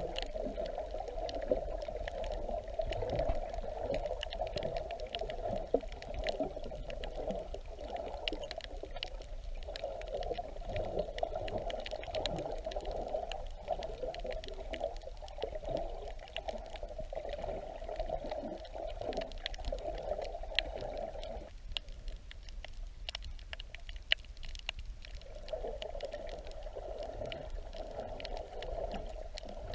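Muffled underwater water noise, a steady rushing with scattered faint crackling clicks. The rushing drops away for a few seconds about two-thirds of the way through, leaving the clicks.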